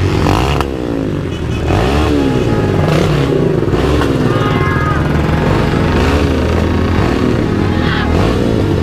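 MotorStar Explore 250 v2 motorcycle on its stock exhaust, revved in quick throttle blips about once a second, the pitch rising and falling each time over a steady idle.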